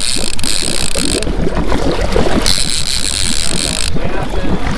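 Trolling fishing boat's engine running steadily, a low drone, under a rushing noise of wind and water.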